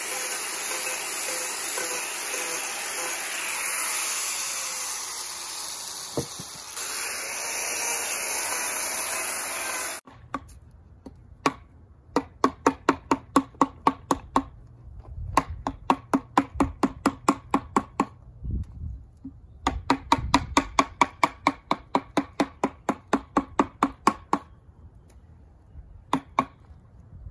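An angle grinder with a carving or sanding disc grinding the inside of a cedar bowl blank, a steady hiss that stops abruptly about ten seconds in. Then a wooden mallet strikes a chisel into the cedar rim in quick runs of sharp knocks, about four a second, with short pauses between runs, splitting wood away along the rim.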